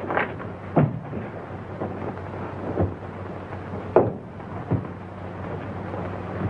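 A handful of short thumps and knocks as a limp body is carried and laid onto a table, the loudest about four seconds in, over the steady hiss and low hum of an old optical film soundtrack.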